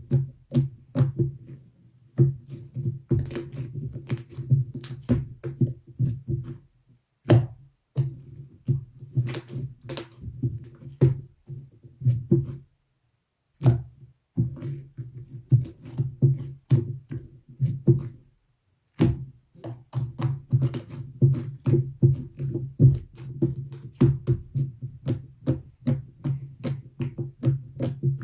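Slime being squished and poked by hand: a quick run of sticky clicks and pops over a steady low hum, broken by three short pauses.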